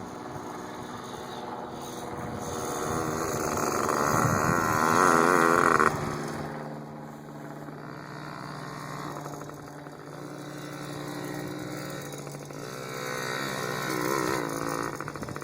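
Dirt bike engine revving up and down as it rides, loudest about five seconds in, falling back, then revving again near the end.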